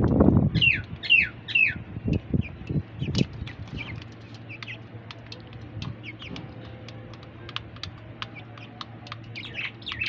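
Young chickens pecking grain from a steel bowl, their beaks ticking on the metal many times, with a few high, falling peeps: four in quick succession in the first two seconds and more near the end. A few dull low knocks come in the first three seconds.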